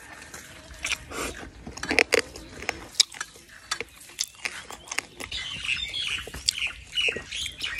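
Close-up chewing and biting of a whole frog from a bamboo-shoot curry: wet mouth clicks and small crunches, irregular.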